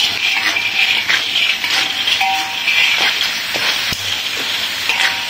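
River snails being stir-fried in a wok: steady sizzling, with the shells clicking and clattering as they are turned without stopping.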